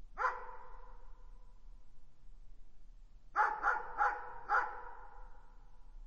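Dog barking: a single bark, then a quick run of four barks about three seconds later, each ringing on in a long echo.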